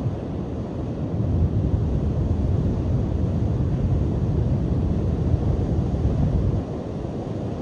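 Strong cold wind buffeting the microphone with surf breaking on the beach, a deep rumbling roar that swells about a second and a half in and eases near the end.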